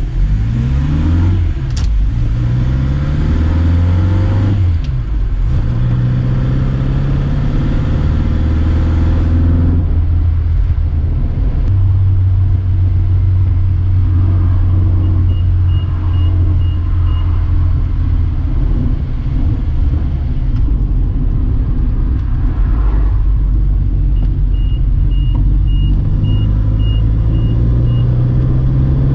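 Reliant Regal's small four-cylinder engine pulling the car along, its pitch climbing in steps through the gears near the start, holding steady while cruising, then rising again near the end.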